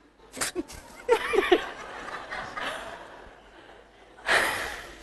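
Laughter in a TV quiz studio: a few short laughs, then a spread of audience laughter with a louder swell about four seconds in.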